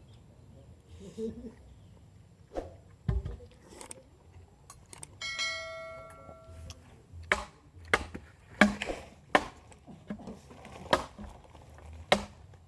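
A metal object struck once, ringing with several clear tones for about a second and a half. Then a run of sharp chopping knocks, about one or two a second, with the loudest just before the middle.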